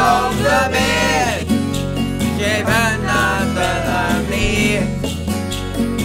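Music: an upbeat song with guitar accompaniment and a singing voice.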